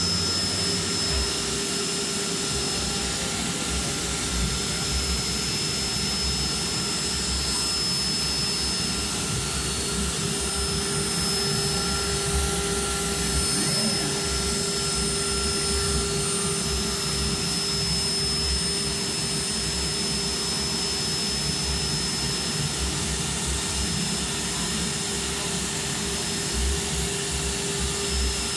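Spindle of a Guangxu H1 2500CC CNC router running at a steady whine while its router bit cuts sheet material along the edges of printed figures, with a hiss of cutting under the tone.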